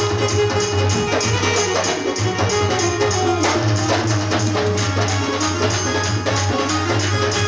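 Live bhajan band playing an instrumental passage: a held melody line over hand drums and jingling percussion keeping a quick, even beat.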